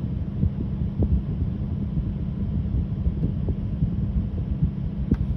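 Lamborghini Huracán STO's naturally aspirated V10 idling, a steady low rumble heard from inside the cabin.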